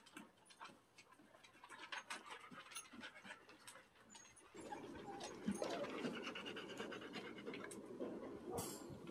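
Standard poodle panting in quick, short breaths. About halfway through, a louder rustling, scratchy noise comes in and takes over.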